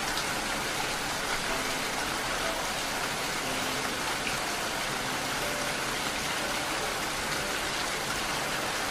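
Steady rain: a dense, even hiss of falling rain with faint scattered drop sounds in it.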